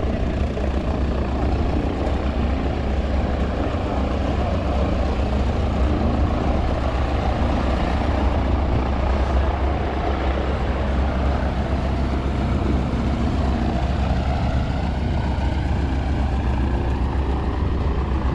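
A steady, low engine rumble that runs on unchanged.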